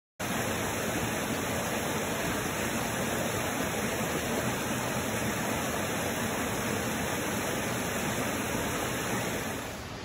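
Shallow rocky mountain stream, a steady rush of flowing water that starts abruptly and drops in level near the end.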